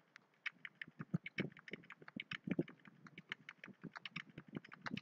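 Computer keyboard keys tapped in quick, irregular succession, as lines of code are tabbed in one after another.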